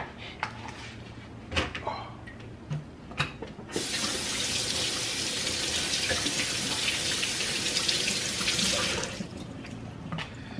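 Kitchen faucet running into the sink for about five seconds, then shut off, after a few light handling knocks.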